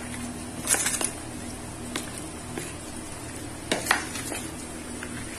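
A metal spoon stirring marinated chicken pieces in a plastic bowl, with a few knocks and scrapes of the spoon against the bowl: about a second in, at two seconds and near four seconds. A steady low hum runs underneath.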